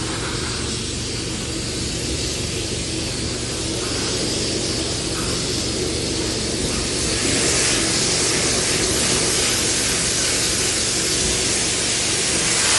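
Air duct cleaning equipment running: a steady machine hum under a hiss of rushing air, the hiss growing louder about seven seconds in.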